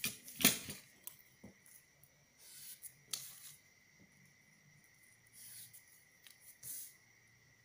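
Handling of a paper pattern with a clear plastic ruler and a marker pen: a sharp tap about half a second in, then scattered short rustles and scrapes of paper and ruler sliding as lines are marked. A faint steady high whine runs underneath.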